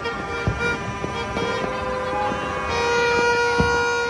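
Many vehicle horns honking at once across the city, long steady blasts overlapping each other, with a couple of dull low thumps, about half a second in and again near the end.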